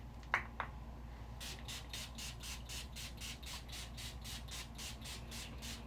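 Perfume atomizer sprayed over and over in quick succession, about four hissing puffs a second, starting about a second and a half in. Two short high squeaks come just before the spraying begins.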